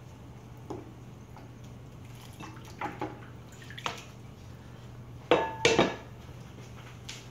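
Plastic cutting board set down over a glass bowl of water, clattering twice against the rim with a brief glassy ring, about five seconds in. Before it come a few lighter knocks and small splashes of water.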